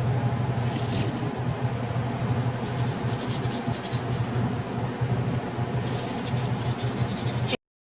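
Scrubbing and wiping on a kitchen surface: three runs of quick, scratchy strokes over a steady low hum, cut off abruptly near the end.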